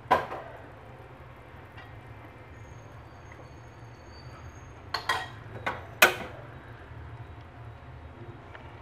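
Ladle clinking against a stainless steel soup pot about five to six seconds in, four quick knocks while the soup is stirred, with one sharp knock at the very start. A low steady hum runs underneath.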